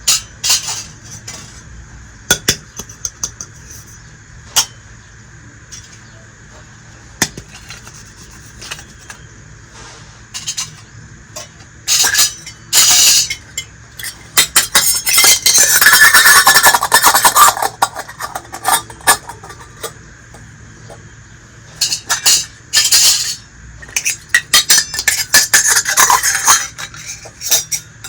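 Small pieces of a miniature toy kitchen set clinking and clattering against one another as they are handled. There are scattered single clicks at first, then two longer runs of busy clattering, the first about halfway through and the second near the end.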